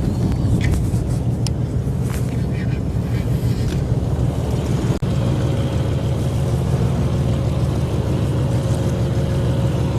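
A boat engine running steadily, a low hum, with a few faint clicks in the first couple of seconds. About halfway through it briefly drops out, then carries on with a steadier, higher hum added.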